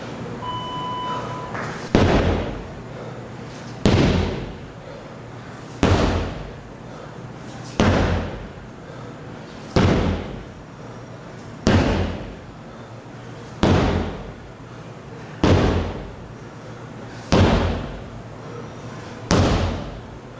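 Sledgehammer strikes landing one after another, ten heavy blows about two seconds apart, each ringing off briefly. A short electronic beep sounds about half a second in.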